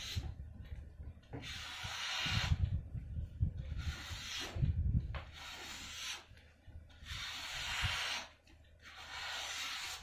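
Victorinox knife blade slicing through a sheet of paper held in the air, a test of its sharpness: about four long cuts of roughly a second each, with dull handling bumps underneath.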